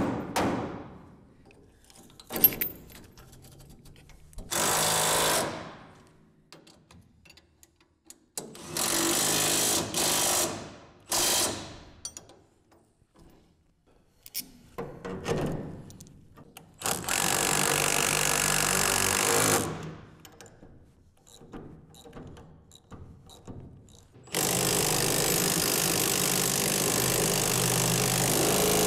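Power tool run in repeated bursts of one to four seconds, driving the bolts that mount the steering rack and tie rods, the longest burst near the end. Light clicks and clinks of hand tools fall in the gaps.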